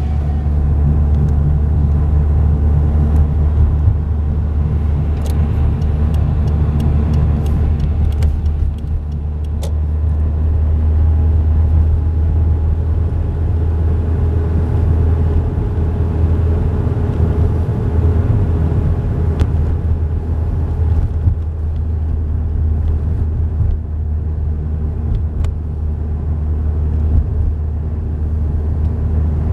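A car driving on a city road, heard from inside the cabin: a steady engine and road-noise drone. A few faint, sharp cracks come through, mostly in the first ten seconds.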